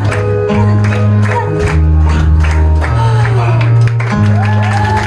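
Music with a steady beat over a bass line that changes note every second or so.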